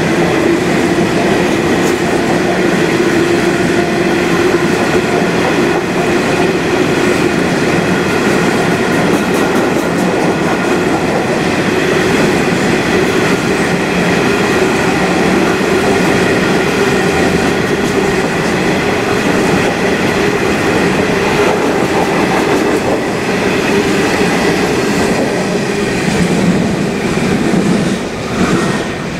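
Freight train wagons rolling past at speed: steady noise of steel wheels on rail, with a sustained whining tone over it. It drops away near the end as the last wagon clears.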